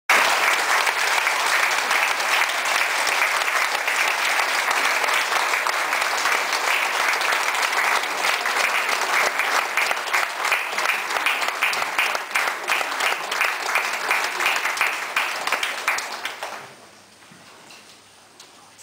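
Audience applauding: dense, steady clapping that thins toward separate claps and then stops abruptly about two seconds before the end, leaving a quiet room murmur.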